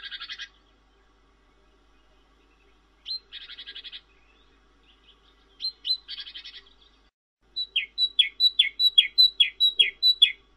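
Cinereous tit (glatik batu / glatik wingko) calling: three short phrases, each a sharp high note followed by a buzzy rattle, then a quick run of about eight two-note calls, each a high note slurring down, about three a second.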